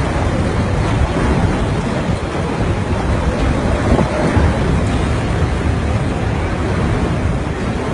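Storm wind buffeting the microphone, with rain: a loud, steady rush of noise.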